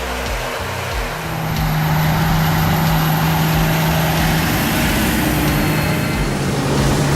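Large tractor's diesel engine running with a steady low drone, getting louder about a second in.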